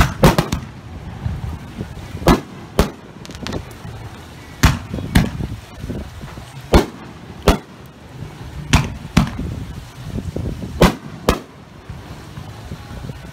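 Aerial fireworks bursting overhead: about a dozen sharp bangs, mostly in pairs about half a second apart, every second or two.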